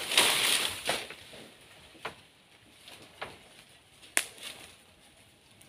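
A burst of rustling from dry banana leaves, then four sharp knocks about a second apart, the loudest a little after four seconds in: a machete chopping into a banana plant's trunk.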